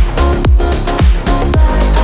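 Electronic dance music with a steady kick drum beating about twice a second over a sustained bassline and chords.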